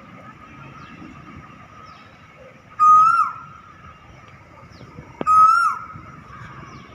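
A cuckoo calling twice, about two and a half seconds apart: each call a loud, clear whistled note that rises slightly and then drops off. A faint steady high tone and low background noise run underneath, and a sharp click comes just before the second call.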